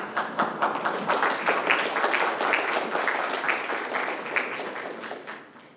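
Audience applauding with many hands clapping at once, fading away near the end.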